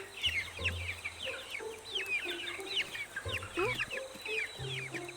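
A crowd of little birds cheeping rapidly, many short falling chirps overlapping, over background music with held low notes.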